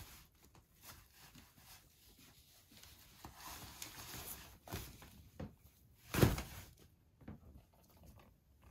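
Rustling and scrabbling of kittens pawing and pulling at the nylon mesh net and fabric of a play tent, with one loud thump about six seconds in.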